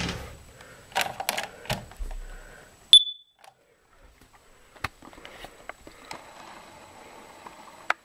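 A Kidde carbon monoxide alarm gives one short, loud, high-pitched beep about three seconds in, as its self-test starts. Handling knocks and clicks come before it, and a few faint clicks follow.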